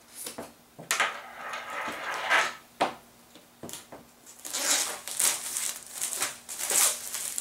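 Thin plastic shrink-wrap being torn and peeled off an iPad Air cardboard box: irregular crinkling and crackling, with a couple of sharp snaps in the first three seconds and denser crinkling in the second half.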